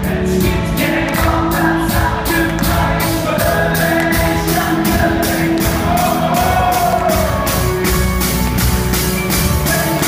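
Live rock band playing: drums keeping a steady beat, with electric guitar, bass and singing.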